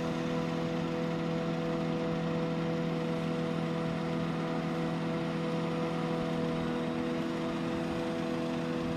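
Claas Jaguar 960 self-propelled forage harvester and an MTZ-82 tractor running steadily together during forage harvesting, the harvester chopping grass and blowing it into the tractor's trailer. The sound is an even mechanical drone with several fixed humming tones over a rushing noise, holding steady throughout.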